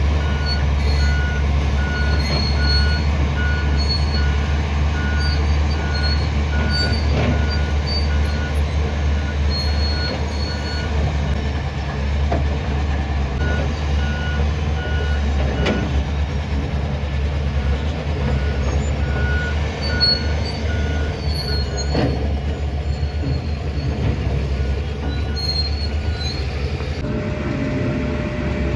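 Heavy diesel engines of a hydraulic excavator and a tipper truck running steadily under load. An electronic warning alarm beeps about one and a half times a second in long stretches, and a few sharp knocks break through.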